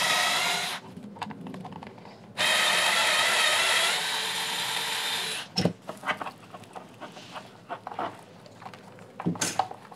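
Cordless electric screwdriver running as it backs out the screws holding a speaker driver: a steady motor whine that stops briefly under a second in, runs again from about two and a half seconds to about five and a half seconds, and then gives way to scattered clicks and knocks of parts being handled and set down.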